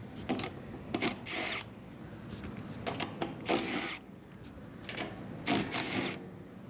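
Scattered clicks and short rattles of hands and tools handling an air conditioning unit's metal parts.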